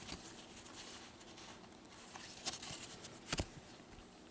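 Faint handling of trading cards as they are flipped through, with two soft clicks past the middle.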